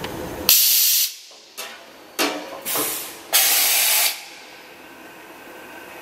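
Hardinge VMC-1000-II vertical machining center's tool changer working: a run of sharp compressed-air hisses that start and stop abruptly, two long ones of under a second near the start and the middle with shorter ones between, as the pneumatics fire during a tool change. A low steady machine hum runs underneath.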